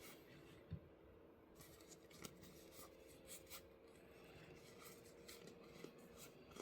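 Faint handling sounds of an UNO card game being unboxed: scattered soft clicks and light rubbing of cardboard, plastic and cards over near-silent room tone with a steady low hum.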